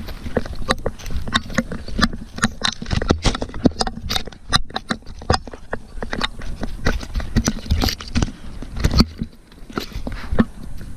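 Rapid, irregular footfalls and thuds of a running Border Collie on the forest floor, heard close up through a camera strapped to the dog, mixed with brushing through moss, twigs and undergrowth. The running eases briefly about nine seconds in.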